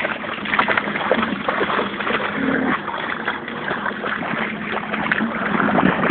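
Shallow water splashing and sloshing as dogs wade and paddle through it, a continuous jumble of small splashes.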